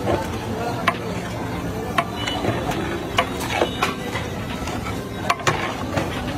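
A long metal ladle stirs in a large metal cooking pot, with sharp clanks and scrapes at irregular moments as metal knocks against metal. The clanks sit over a steady background of street noise.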